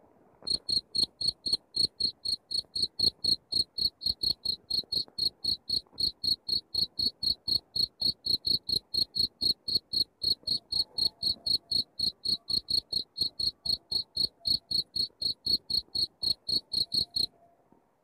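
Field cricket calling: a steady run of short, high chirps, nearly four a second, that starts about half a second in and stops near the end.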